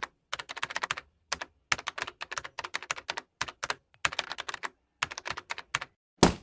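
Keyboard typing clicks in quick runs separated by short pauses, ending with one louder strike near the end, typical of a typing sound effect laid under on-screen text.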